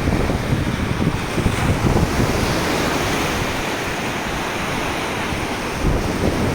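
Rough sea surf washing onto the shore, with wind buffeting the microphone in gusts.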